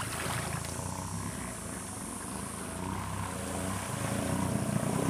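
Suzuki LT-Z250 quad's single-cylinder four-stroke engine running steadily at low revs.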